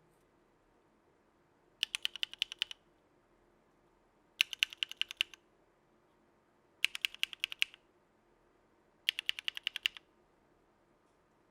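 Mechanical keyboard typing: Novelkeys x Kailh Cream v2 linear switches with all-POM housings, in a Geonworks Frog with an aluminum plate and CRP R4 keycaps. Four quick bursts of about eight to ten keystrokes each, a couple of seconds apart.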